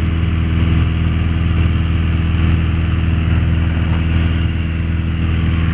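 Piper PA-28-181 Archer's four-cylinder Lycoming O-360 engine and propeller running steadily at cruise, heard inside the cabin as an even low drone with a hiss over it.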